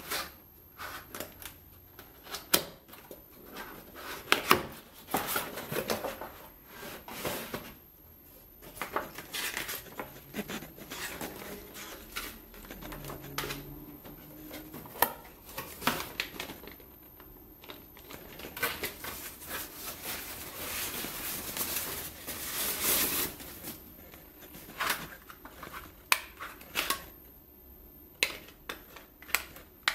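Cardboard packaging being opened and handled: flaps and inserts rubbing and sliding, with many irregular clicks and taps from the plastic case of an Eachine LCD5800D FPV monitor. A longer stretch of rubbing comes about two-thirds of the way through, and a quick run of clicks near the end.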